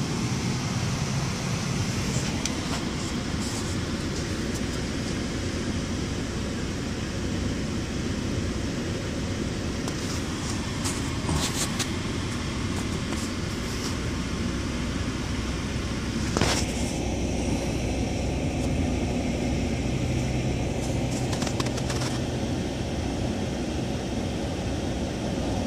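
Steady car cabin noise of a car driving slowly: engine and tyre noise heard from inside, with a few light clicks and knocks.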